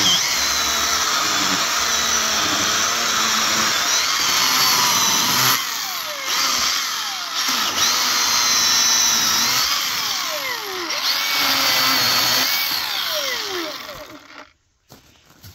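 Milwaukee M18 Fuel cordless chainsaw running with a high electric whine, cutting wood, its pitch dipping several times under load. The saw stops about 14 seconds in, leaving a few faint crackles.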